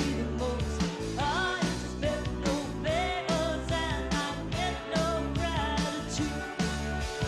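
Country-rock song recording with a band playing a steady beat, about two beats a second.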